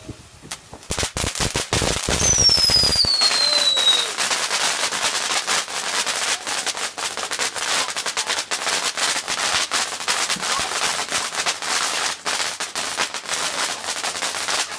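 Fireworks crackling: a fast, dense run of small sharp bangs that starts about a second in and keeps going, with one high whistle falling in pitch early on the run.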